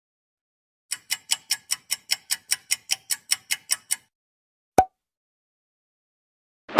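Clock-tick sound effect: about fifteen quick, even ticks, roughly five a second, that stop after about three seconds, followed a moment later by a single sharp click.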